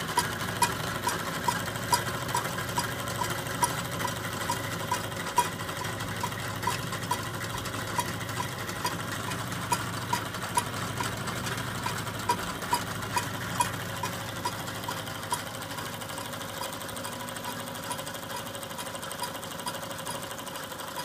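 Toy two-cylinder steam engine running steadily and driving belt-driven tin workshop models: a continuous mechanical whirr with a regular light tick about three times a second and occasional sharper clicks.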